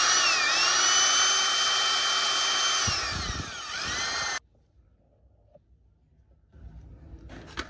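Corded Makita 100 V electric drill with a 10 mm chuck running unloaded in reverse: a steady high motor whine that dips briefly about half a second in, slows and picks up again around three seconds, then cuts off suddenly a little after four seconds. Faint handling clicks follow near the end.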